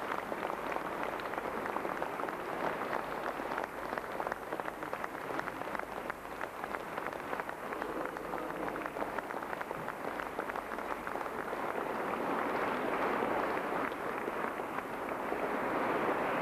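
Audience applauding steadily, a dense patter of many hands clapping, swelling louder in the last few seconds.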